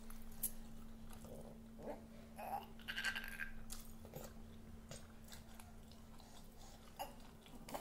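Faint mouth sounds of a toddler chewing and sucking on a piece of lemon: small lip smacks and clicks scattered through, over a steady low hum.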